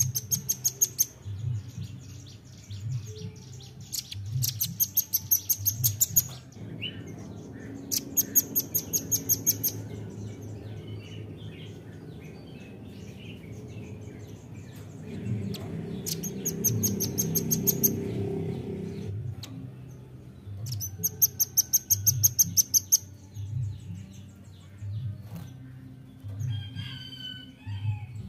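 Velvet-fronted nuthatch calling: rapid trills of sharp, high chips, about ten a second, in about five bursts of one to two seconds each.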